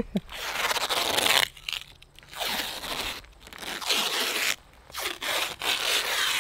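Green masking tape pulled off its roll in a series of ripping, zip-like pulls, each about a second long with short pauses between, as strips are laid around the edge of a flexible solar panel.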